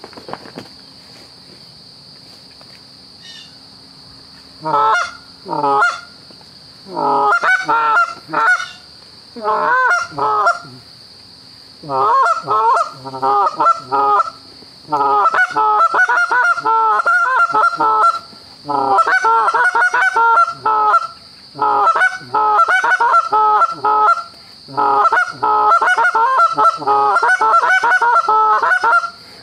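Canada geese honking: a few short runs of loud honks starting about five seconds in, then honks and clucks in a rapid, almost unbroken stream from about twelve seconds in.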